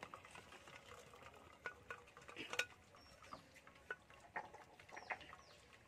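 Faint, scattered light clinks and taps of an aluminium pot against a plastic colander as boiled potato and banana flower are tipped in to drain.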